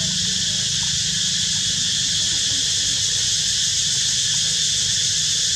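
Steady high-pitched drone of insects, unbroken and even, over a low steady hum.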